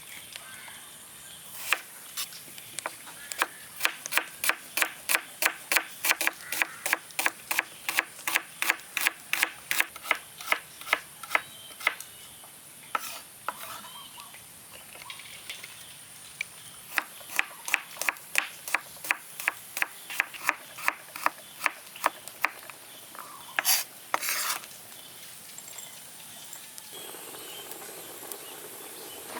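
Knife strokes on boiled pork belly, quick and rhythmic at about two or three a second, in two long runs with a pause between and two longer drawn strokes near the end.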